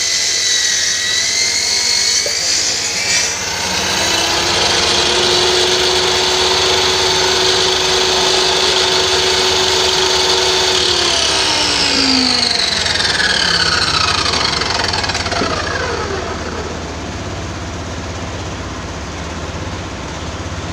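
Circular saw's electric motor running at full speed with a steady whine, then switched off about eleven seconds in and spinning down, its pitch falling away over about four seconds. This is a test run after the broken wire to the carbon-brush connector was repaired.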